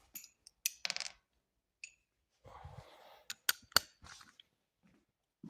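Scattered light metallic clicks and clinks, with a few short scrapes, of a hex key and loosened bolts being handled during motorcycle rear-wheel removal. Three sharp clicks come close together past the middle.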